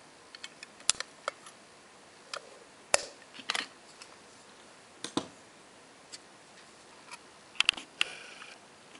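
Antique metal pocket watches being handled: irregular sharp clicks and taps of the cases and their hinged lids, the loudest about three seconds in and near the end, with a short scrape just after the last cluster.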